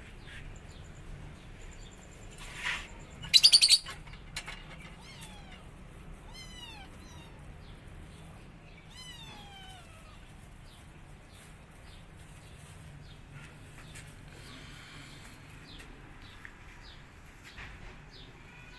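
Kittens mewing: a few short, falling high-pitched mews in a cluster about five to seven seconds in and again around nine to ten seconds, with a brief loud rattling burst about three and a half seconds in.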